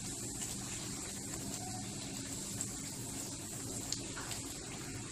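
A methi poori deep-frying in hot oil in a kadhai: steady sizzling and bubbling, with two light clicks partway through.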